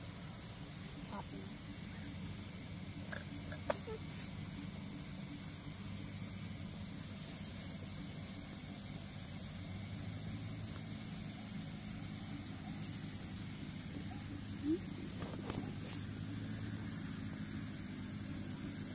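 Steady high-pitched night insect chorus over a constant low hum, with a couple of faint short chirps.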